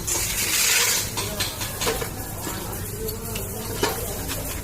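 A short hiss in about the first second, then scattered light metallic clicks and scrapes as tools and starter-motor parts are handled.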